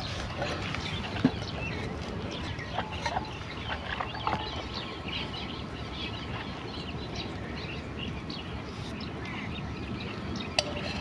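Chickens clucking and birds calling in the background over a steady outdoor noise, with a single sharp tap about a second in.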